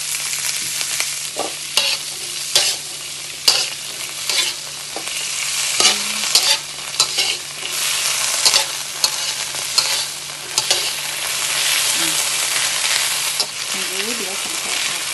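Cut green beans and garlic sizzling in butter and oyster sauce in a thin metal wok, stirred with a metal spatula that scrapes and clicks against the pan at irregular moments.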